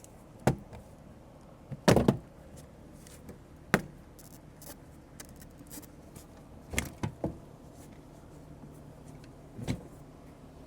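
Plastic retaining clips of a 2013 Subaru Outback's door trim panel popping loose as the panel is pried off the door: about half a dozen sharp snaps spread apart, some coming in quick clusters.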